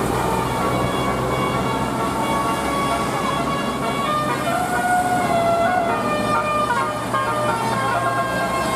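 Basuri telolet bus horn playing a tune of held notes that change pitch in steps, over a steady low hum.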